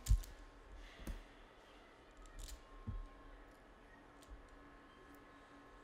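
A few faint knocks and clicks of a handheld camera being handled and moved, scattered over quiet room tone.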